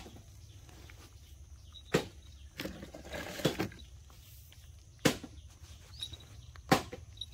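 Three sharp clicks, about two, five and almost seven seconds in, with a brief rustling scuffle between the first two, over a faint steady outdoor background.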